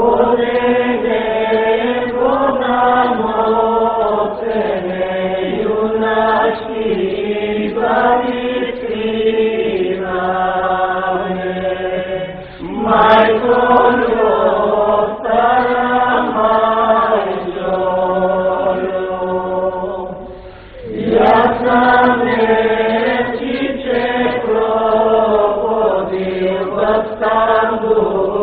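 Voices singing a chant-like song together in long, slow phrases of held notes, with two short breaks between phrases.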